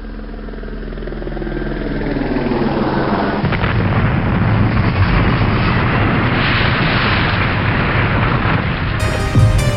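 Song intro: a dense, noisy rumble that swells louder over the first three seconds and then holds. Pitched music comes in about nine seconds in, leading into the guitars.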